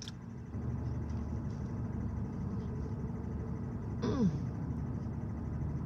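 Steady low hum of a 2022 Nissan Altima idling, heard from inside the cabin. About four seconds in, a person makes a short vocal sound that falls in pitch.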